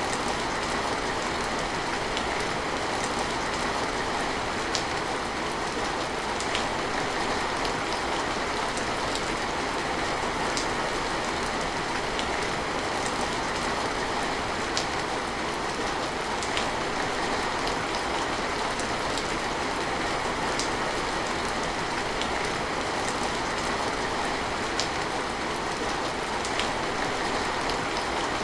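Steady rain in a constant hiss, with single sharper drops ticking through it every few seconds.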